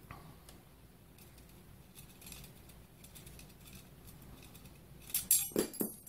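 Faint ticks and scrapes of a small screwdriver on a video card's metal mounting bracket, then several loud, sharp metallic clinks near the end as the loosened bracket is handled.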